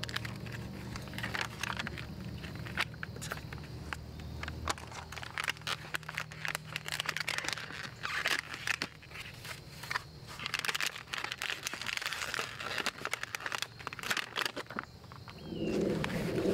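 Packaging crinkling and rustling with many scattered clicks and tearing, as a new road bike is unwrapped. Low background music fades out about five seconds in.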